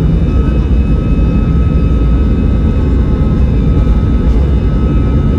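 Airbus A320's CFM56 jet engines at high thrust heard from inside the passenger cabin: a loud, steady deep rumble with a thin, steady high whine over it.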